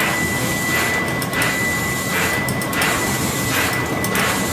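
Lake paddle steamer's steam engine machinery running, a regular swish about one and a half times a second over a steady hum with a thin high whine.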